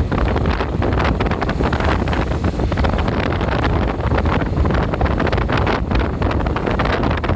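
Heavy wind buffeting the microphone over steady road and engine noise, from riding a motorcycle at speed behind a bus; no horn sounds.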